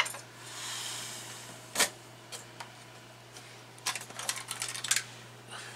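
Sharp plastic clicks and handling noise as a refrigerator control board is worked off its snap-in mounting prongs. There is one click at the start, a short rustle, another click about two seconds in, and a quick run of small clicks around four to five seconds in.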